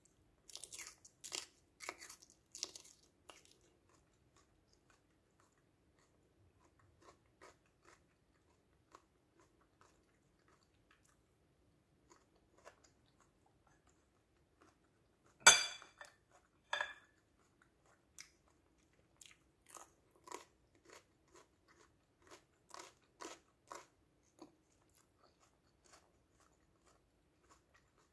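Crisp crunching and chewing of raw yellow bell pepper strips. About halfway through comes one loud, sharp bite through a strip and a smaller one a moment later, followed by a run of crunchy chews.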